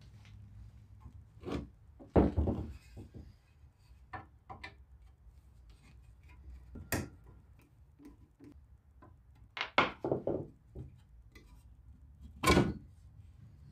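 Handling noises: a series of irregular knocks and clunks as objects are picked up, moved and set down on a work surface. The loudest knock comes near the end.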